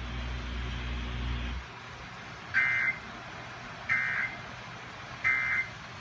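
A NOAA weather radio speaker sounds three short bursts of warbling data tones, a little over a second apart: the SAME end-of-message code that closes an alert broadcast. Before them a low steady hum cuts off about a second and a half in.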